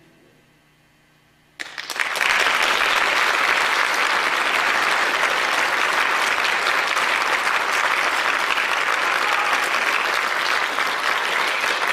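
A second and a half of faint hum, then an audience starts applauding suddenly, and the clapping stays loud and steady.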